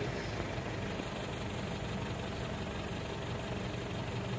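Mitsubishi Strada Triton's common-rail diesel engine idling steadily as it warms up for the ECU's supply pump learning.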